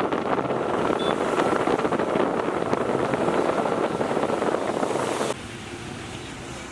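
Wind buffeting the microphone over road noise while travelling on the road. About five seconds in it cuts to a quieter, steady traffic noise.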